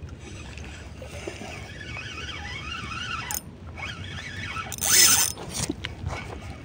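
Ryobi spinning reel being cranked to bring in a hooked fish, with a brief louder rush of noise about five seconds in.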